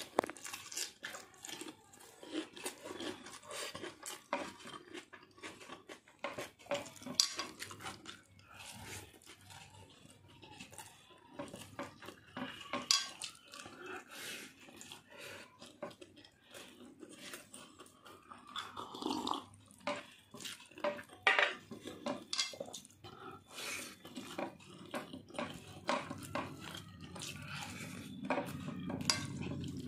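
Eating rice and meat curry by hand: fingers mixing and scooping rice against a plate, making many short, irregular clicks and scrapes, with chewing of big mouthfuls.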